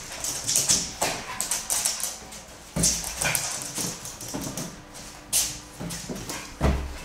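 Jack Russell Terrier whining and yipping in excitement while playing, with scuffling and a few sharp thumps.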